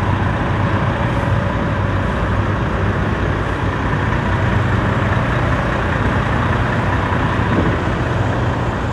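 Steady engine drone: a low hum under a wide rushing noise that holds level throughout.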